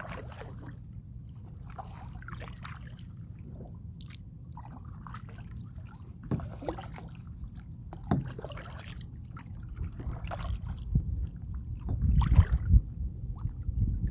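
Kayak paddle blades dipping and splashing in the water every second or two, over a low rumble that grows louder near the end.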